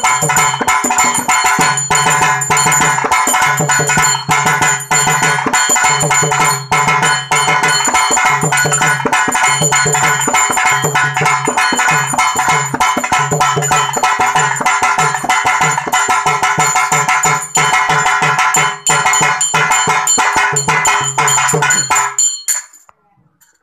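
A pair of rope-laced hand drums beating a fast, steady rhythm over a sustained droning tone, stopping abruptly about 22 seconds in.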